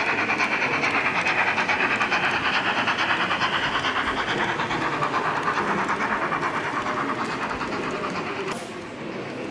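Sound-equipped H0-scale model steam locomotive giving a rapid, even chuffing through its small loudspeaker as it runs past. The sound switches on and off abruptly, with the quieter rolling of the wagons left after it cuts off near the end.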